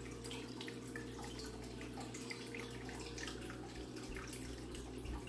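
Small pieces of costume jewelry clicking and clinking lightly as they are picked through and handled, in many scattered little ticks over a low steady hum.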